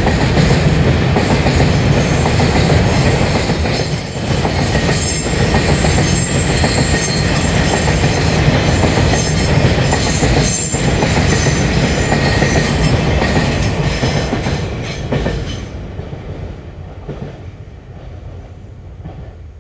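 Empty ballast hopper wagons of a freight train rolling past: wheels rumbling and clattering over the rail joints, with a thin high wheel squeal on the curve. About three-quarters of the way through the sound falls away as the last wagon passes.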